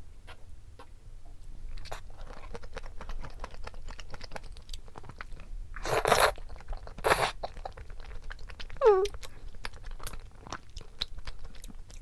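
Close-miked eating sounds: wet chewing and mouth clicks while eating chewy rice cakes in cream sauce, with two loud slurps about six and seven seconds in. There is a brief falling pitched sound near nine seconds.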